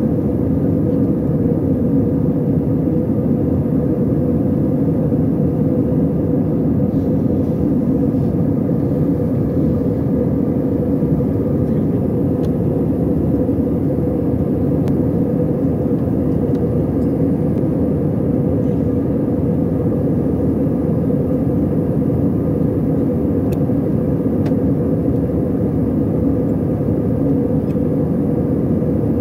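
Jet airliner cabin noise in flight, heard from a window seat over the wing: a steady rumble of engines and airflow with a constant hum in it, unchanging throughout.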